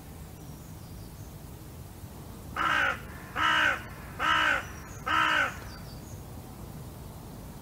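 A crow cawing four times in a row, harsh calls a little under a second apart, starting about two and a half seconds in.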